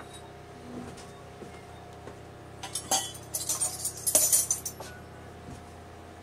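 Kitchen items clinking and rattling as they are handled, a cluster of bright clinks and a clattery rustle lasting about two seconds in the middle, over a steady low hum.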